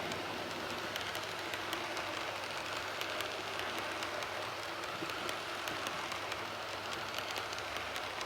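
H0-scale model train running along the layout track, a steady rolling noise dotted with many small irregular clicks.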